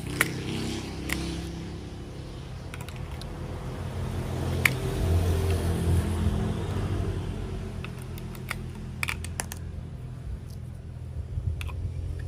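Scattered light clicks and taps of plastic toy train parts being handled, over a steady low hum.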